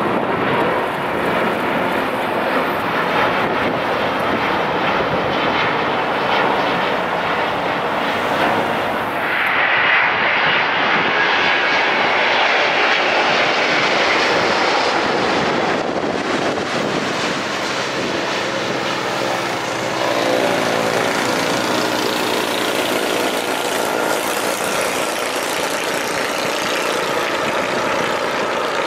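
Jet engines of a large wide-body airliner passing close by, a continuous loud rushing noise. It swells to its peak about ten seconds in, then eases, with a wavering rise again around twenty seconds.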